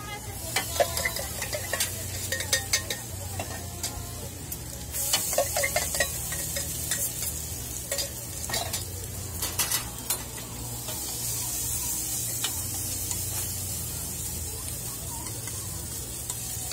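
Shredded potato frying in oil inside metal ring molds on a flat-top griddle, a steady sizzle that gets louder about five seconds in. Quick clinks and scrapes of metal utensils against the rings come through the first ten seconds, over a low steady hum.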